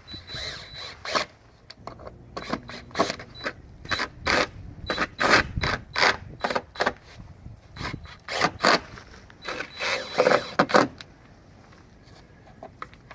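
Irregular clicks, knocks and scrapes of a camera mount and its hardware being handled and fastened to a wall, dying down about eleven seconds in.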